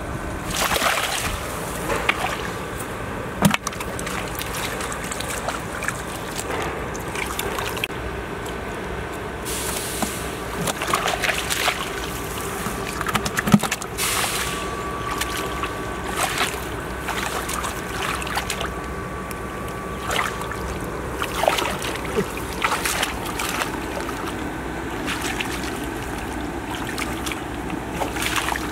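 Hands sloshing and splashing in shallow muddy water, groping for and gripping fish, with irregular small splashes and grass rustling.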